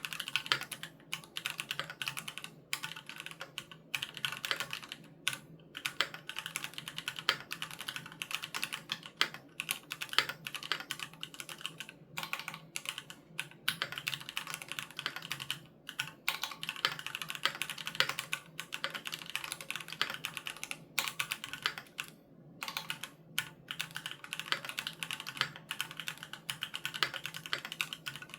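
Continuous fast typing on a Keychron Q3 Knob mechanical keyboard with Gateron G Pro Red linear switches: a dense run of keystroke clacks broken by a few short pauses.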